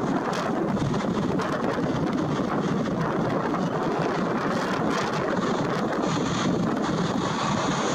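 Jet engines of a Boeing 787-9 Dreamliner at takeoff thrust during the takeoff roll, heard from a distance as a steady rushing noise, with wind on the microphone.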